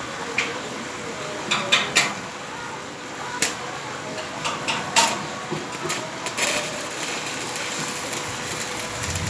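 Irregular sharp metal taps and clanks, a dozen or so scattered through, the loudest about two and five seconds in, over a steady faint hum, as from hammering or handling metal pieces during welding work.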